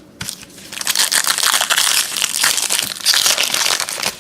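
Plastic-foil trading card pack wrapper crinkling loudly as it is torn open and its cards are pulled out.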